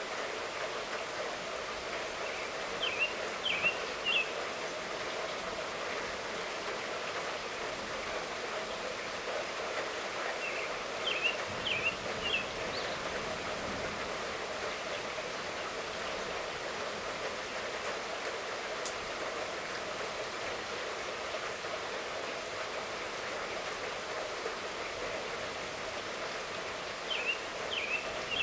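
Steady light rainfall hissing evenly, recorded during a thunderstorm. A bird chirps in three short bursts of quick high notes over it.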